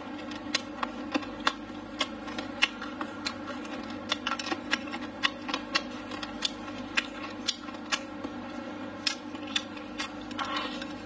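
Close-miked chewing, with sharp wet mouth clicks about twice a second over a steady low hum. Near the end comes a short noisier rustle as food is pushed from the bowl into the mouth.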